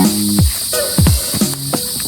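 Background music with a steady beat and deep bass notes that fall in pitch about twice a second.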